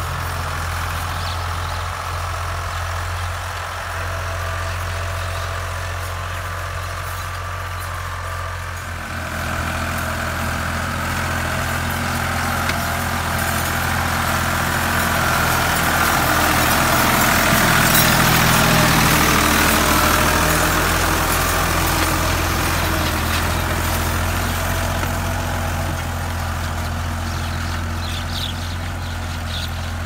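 Ford 4610 tractor's three-cylinder diesel engine running steadily under load as it pulls an 18-disc harrow through the soil. It grows louder as the tractor comes close, is loudest a little past halfway, then eases off.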